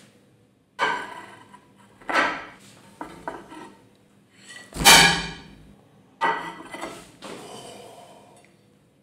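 A plate handled against a table: a series of sharp clattering knocks, each with a short ringing tail, the loudest and deepest about five seconds in.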